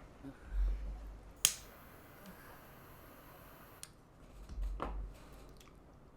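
A single sharp click about a second and a half in, followed by a faint hiss, with two dull low thumps, one before it and one near the end.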